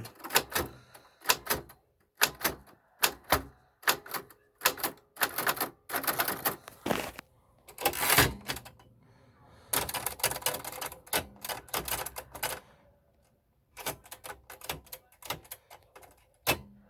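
Keys of a Royal manual typewriter being struck one after another, the type bars clacking in irregular runs with a short pause about three-quarters of the way through. The keys are being tried out, and the owner thinks some of them are jammed.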